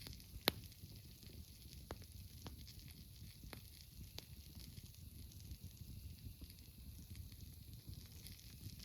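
Campfire crackling faintly, with a few sharp pops, the loudest about half a second in.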